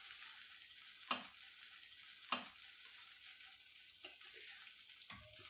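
Metal ladle stirring thick kadhi pakora curry in an aluminium pot, knocking against the pot a few times, over a faint steady sizzle.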